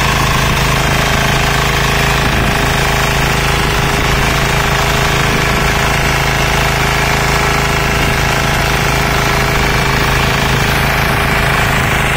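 Texas Alligator 9DPE power weeder's single-cylinder diesel engine running steadily under load, with a rapid, even knock, while its rotary tines churn through wet paddy mud.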